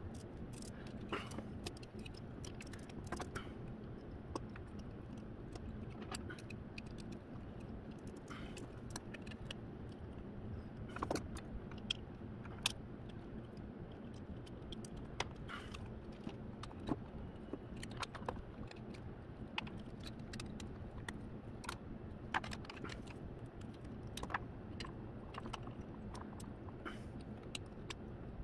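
Scattered light clicks and small rattles of plastic robot parts, a servo and small screws being handled and fitted together, and a screwdriver at work, over a steady low hum.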